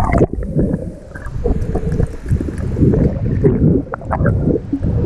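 Water sloshing and gurgling around a camera held by a snorkeler, turning muffled and low as the camera goes under the surface about a quarter second in, with small ticks of bubbles and movement.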